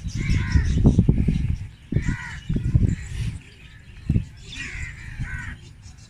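Crows cawing, several short harsh caws spread through the few seconds, over loud low rumbling and thuds close to the microphone.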